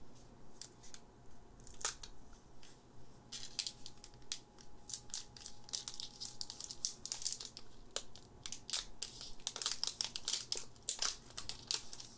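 Foil wrapper of a Pokémon Lost Thunder booster pack crinkling and crackling as fingers work it, then being torn open, with the crackles thickest near the end.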